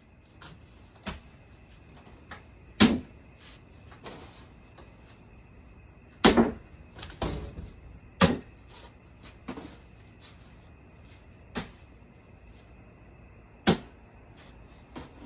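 Cornhole bean bags landing on wooden boards and the porch floor: a run of dull knocks and thuds at irregular spacing, about eight or nine in all, the loudest about three, six and eight seconds in.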